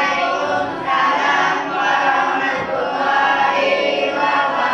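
A class of students chanting together in unison, several phrases in a row with short breaks between them.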